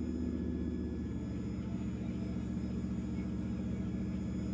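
Traxxas TRX-4 radio-controlled crawler truck's electric motor and gearbox running, a steady low whirring hum as it crawls forward.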